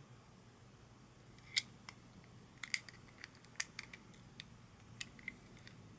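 Faint, sharp little clicks and taps, scattered and irregular, from a die-cast toy truck and its plastic parts being turned over in the fingers.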